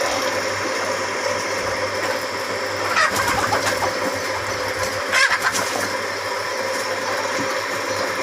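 Kadaknath chickens clucking, with two louder, brief calls about three and five seconds in, over a steady mechanical hum.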